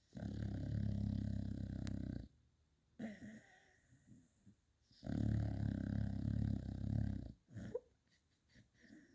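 Beagle snoring in its sleep: two long snores of about two seconds each, one at the start and one about five seconds in, with quieter breathing between them.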